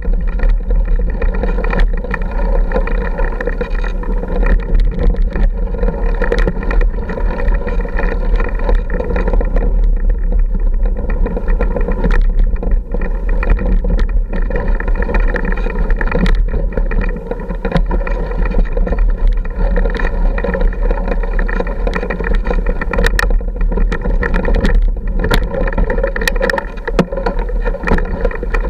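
Off-road motorcycle engine running steadily at low speed on a rough, rocky trail, with frequent knocks and clatter from the bike jolting over rocks.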